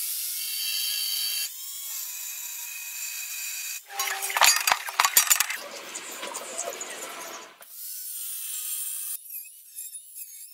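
Angle grinder cutting notches into the rusty steel wall of a halved gas cylinder, heard in several short clips cut one after another. The loudest stretch, about four seconds in, is the disc biting into the metal, and later the motor's whine rises and falls. Between cuts, a marker scratches across the steel.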